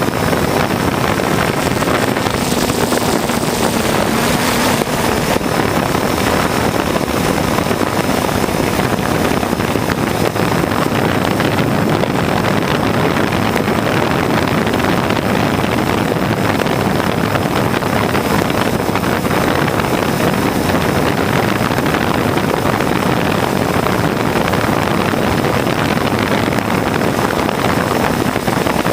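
Drone's motors and propellers whirring steadily in flight, with wind rushing over the microphone.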